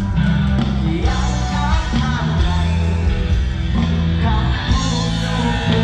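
Rock music with a singing voice over a bass line.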